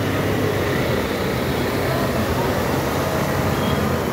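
Steady low rumble of vehicles wading through a flooded street.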